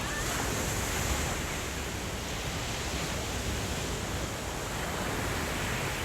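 Sea waves washing onto a sandy beach, heard as a steady rushing noise, with wind buffeting the phone's microphone and adding a low rumble.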